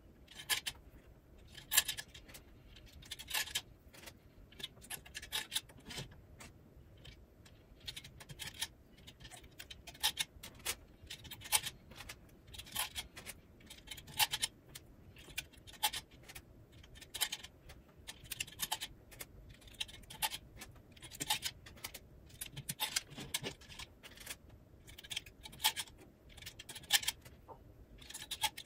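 Metal needles being slid one at a time into the slots of a plastic sock-knitting-machine cylinder: small irregular clicks and scrapes, one or two a second, often in quick clusters.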